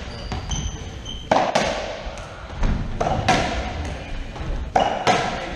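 Racquetball play: a hollow rubber ball smacking racquet strings, floor and walls, each hit echoing in the enclosed court, about five hits mostly coming in pairs, with brief high sneaker squeaks on the wooden floor in the first second.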